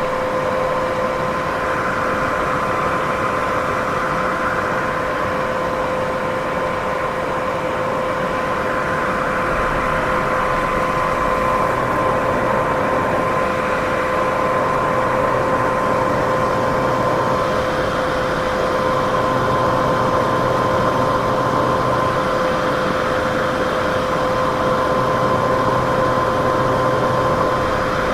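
Steady white-noise sleep sound: an even rushing hiss with a constant machine-like hum tone running through it, unchanging throughout.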